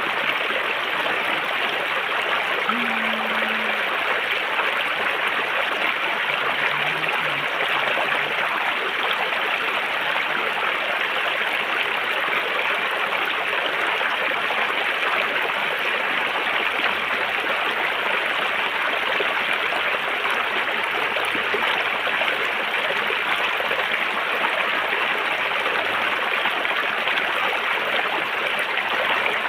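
River water flowing steadily over stones, an even rushing and gurgling with no change.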